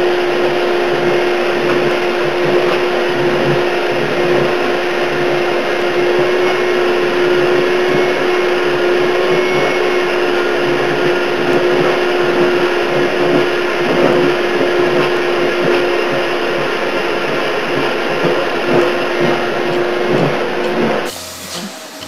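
Vacuum cleaner running steadily: a loud, even rush of air with a steady hum, its hose nozzle drawn over a cat's fur. It cuts off suddenly about a second before the end, giving way to quieter sound.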